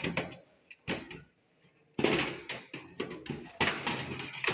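Knocks and clatter of a desktop computer's power supply unit being handled and pressed into place in the metal case, in two bursts, a short one at the start and a longer run from about halfway through.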